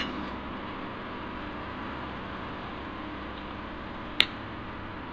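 Steady background hiss with a faint low hum, and a single sharp click about four seconds in.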